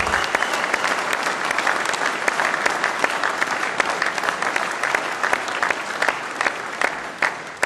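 Audience applauding: dense, many-handed clapping that thins out and fades near the end.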